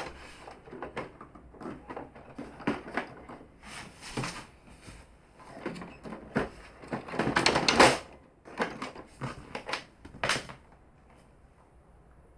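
Irregular plastic clicks, knocks and rubbing from the casing and parts of a Canon MF4450 laser printer being handled and fitted back together, loudest in a stretch of scraping about seven seconds in, and dying away about ten seconds in.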